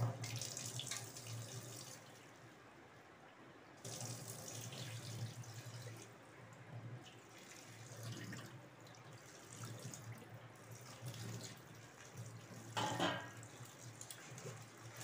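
Kitchen tap running into a stainless steel sink while grated potato shreds are rinsed by hand in a bowl and a mesh strainer to wash out their starch, with a louder splash near the end. A steady low hum runs underneath.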